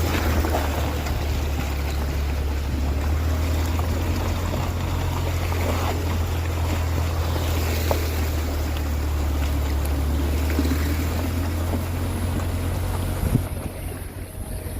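A 4x4 wading through floodwater: a steady low engine rumble under the noise of water rushing and splashing around the vehicle. There is a single knock near the end, and the sound then drops quieter.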